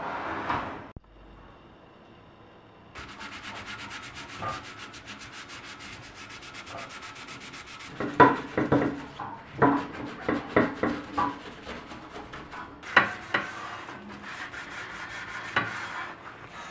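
Scrubbing a surface with fast, even back-and-forth strokes, starting about three seconds in. Several louder knocks and clatters come in the second half.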